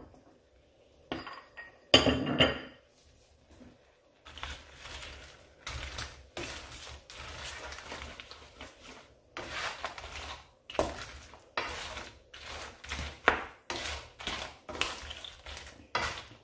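A metal spoon stirring in a cooking pot, mixing crab pieces with the turmeric and salt just added. A few separate knocks at first, then steady scraping and irregular clinks from about four seconds in.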